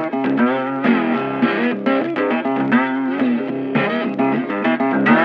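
Background music: an electric guitar playing a melodic line over a steady bass.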